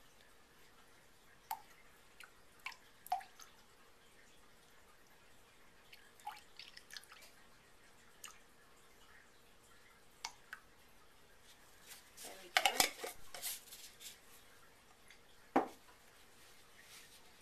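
Calendula hydrosol poured slowly from a glass jar into a glass measuring cup, with scattered drips and light glass taps. About two-thirds through comes a denser run of trickling and clinks, then one sharp clink.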